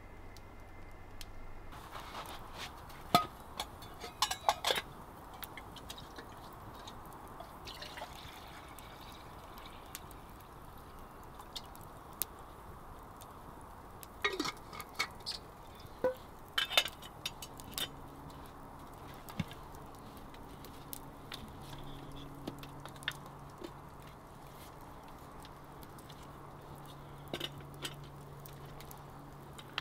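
Wood campfire crackling, with scattered clinks and knocks of a steel flask and metal cups being handled and a drink poured. A faint low steady hum joins in about halfway through.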